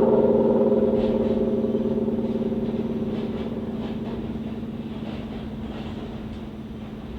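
A single distorted electric guitar chord left to ring, fading slowly and steadily away, over a low rumble.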